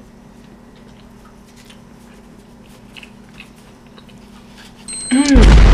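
A person chewing a soft, chewy dessert, with faint mouth clicks over a low room hum. About five seconds in, a high steady beep starts, and then a sudden, extremely loud, distorted burst with a swooping pitch cuts in.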